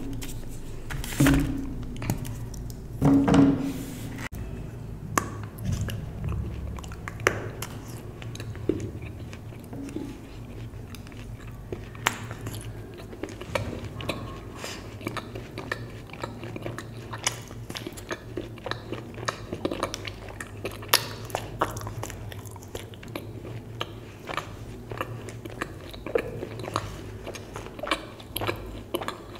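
A milk chocolate bar being snapped into pieces, with the two loudest snaps about one and three seconds in. Then the pieces are bitten and chewed close to the microphone, with many small sharp clicks.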